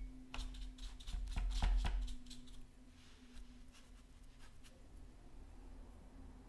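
Paintbrush dabbing and stroking on watercolour paper: a quick run of light taps and scrapes in the first two seconds or so, then only faint scattered ticks, over a low steady hum.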